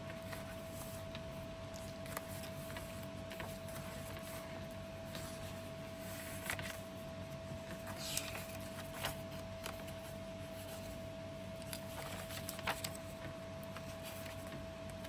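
Pages of a handmade paper junk journal being turned and handled: soft, scattered paper rustles and light taps, a few seconds apart, over a steady faint hum.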